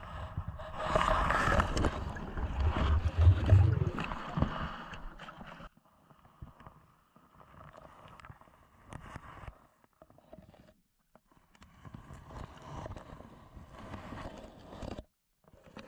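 Underwater noise of a swimmer moving through reeds in a pond: water sloshing and rubbing against the camera. It is loud for the first five seconds or so, then quieter, with scattered knocks and short quiet gaps.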